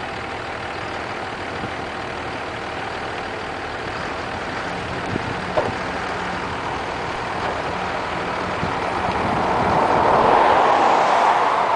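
Work truck's engine running steadily while its front-mounted debris remover picks up a carcass, with two sharp knocks about five and a half seconds in. The sound swells louder near the end.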